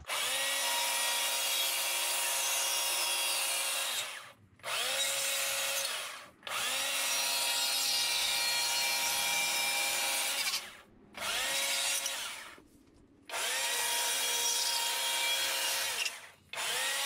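Small-bar chainsaw cutting into a wood block in about six runs of one to four seconds, each starting with a quick rise in pitch as the chain spins up and stopping abruptly between cuts, as corners are knocked off to rough out a carving.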